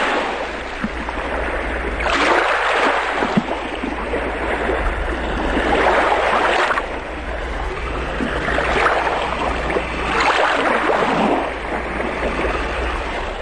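Water waves washing in, the rush swelling and easing every two to four seconds over a steady low rumble.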